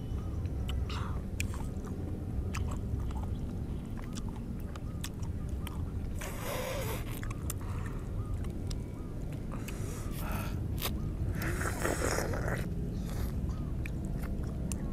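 Close-up eating sounds of juicy orange segments being bitten, chewed and sucked: small wet clicks and smacks, with two longer, louder slurps about six and twelve seconds in, over a steady low background rumble.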